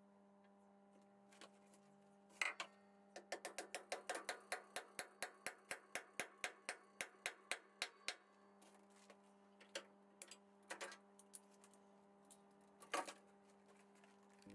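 Small hammer giving gentle taps to seat a part in the timing side of a 1953 BSA B31 single-cylinder engine's crankcase: a sharp knock, then a quick even run of light taps, about five a second, for about five seconds, then a few scattered single taps and one harder knock near the end.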